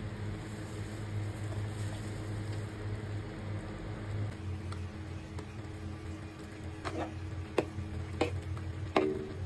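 A metal ladle stirring simmering soup in a wok, knocking sharply against the pan four times in the last few seconds, over a steady low hum and hiss.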